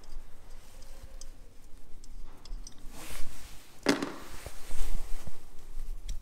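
Metal parts and tools being handled on an engine's front belt drive as water pump pulley bolts are removed by hand: scattered light clicks, a sharper knock with a scrape about four seconds in, and a ringing metallic clink near the end.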